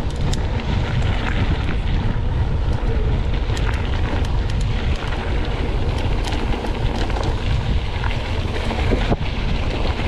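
Wind rushing over the microphone of a mountain bike in motion on a rough dirt trail, a steady low rumble with many small clicks and rattles from the tyres and bike over loose gravel.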